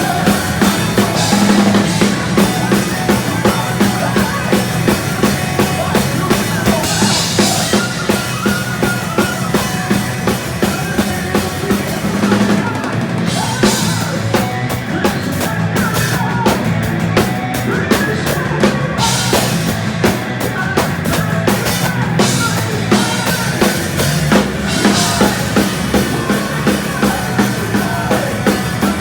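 Live heavy speed metal band playing: distorted electric guitars and bass over fast, loud drumming with kick drum and snare. About halfway through the drums switch to a run of sharp, evenly spaced hits.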